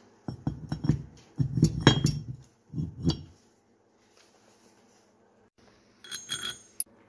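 A heavy aluminium wheel-adapter plate with threaded studs is set down and shifted on a workbench: a run of knocks and clunks over about three seconds. Near the end comes a brief ringing clink of small steel bolts handled together.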